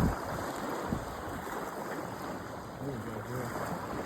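Wind buffeting the phone's microphone, with water washing against the shore underneath.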